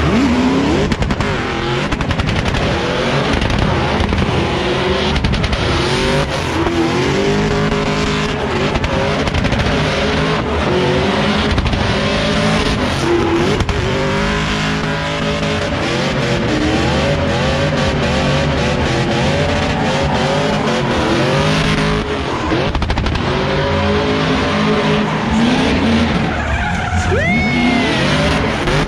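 Drift car doing donuts: its engine revs repeatedly, rising and falling in pitch, while the spinning rear tyres screech and skid. A higher squeal rises and falls near the end.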